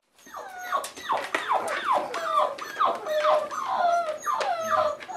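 Boerboel puppies whining: a rapid run of short, high whines, each falling in pitch, some overlapping.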